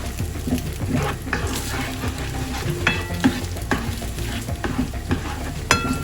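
Beaten egg and leftover chicken and pork frying in a pan, sizzling, while a spatula stirs and scrapes them with irregular knocks against the pan. Two of the knocks ring briefly, about three seconds in and near the end.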